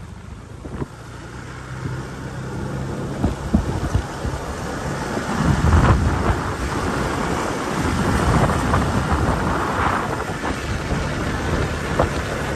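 Wind buffeting the microphone on a moving motorcycle, in gusty low rumbles over a steady low engine hum. The rumble swells about halfway through.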